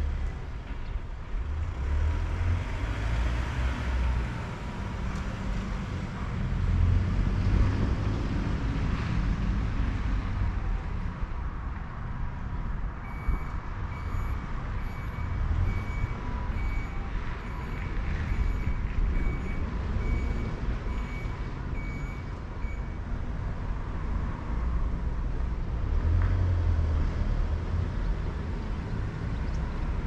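Steady low vehicle rumble. About midway, a series of short electronic beeps sounds for about ten seconds, evenly spaced at about one and a half a second.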